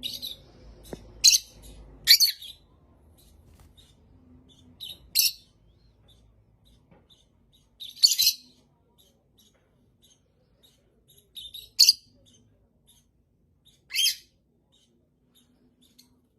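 A parrot giving six short, high, screeching calls spaced a couple of seconds apart, with faint chirps in between.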